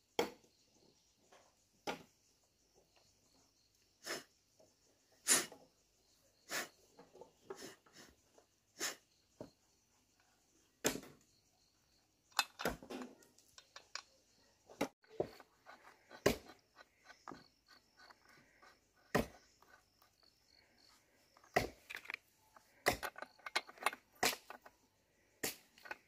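Irregular sharp metallic clicks and taps of a plug wrench at the chainsaw's spark plug, as the plug is worked out and handled.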